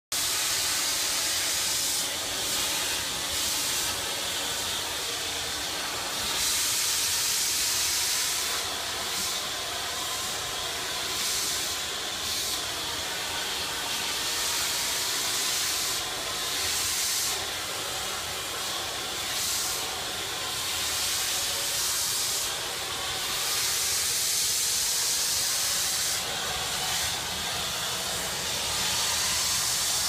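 Backpack vacuum cleaner running steadily, its suction hiss swelling and easing every second or two as the brush nozzle works over a wooden bookcase.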